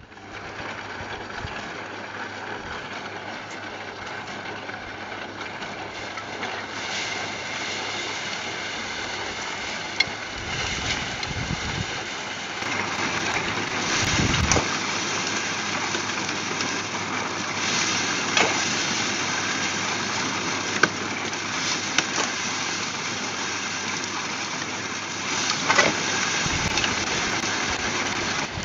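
Homemade trommel running, its mesh drum turning with a steady rattling hiss of soil and small stones tumbling through it. Occasional sharp clicks and knocks from stones.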